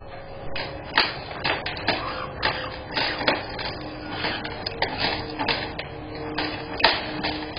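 A run of short clicks and knocks, about two or three a second: birds clambering over and working at the aviary's wooden perches and toys. A faint steady tone joins in about halfway through.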